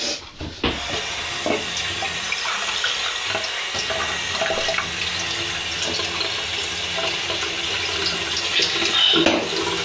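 Liquid running out of a clear plastic bottle as someone chugs from it in one long steady pull. It starts about half a second in and stops just before the end, a little louder shortly before it stops.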